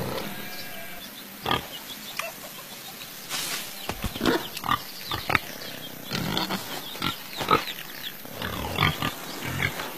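Pigs grunting in short, separate bursts, sparse at first and coming several a second from about three seconds in.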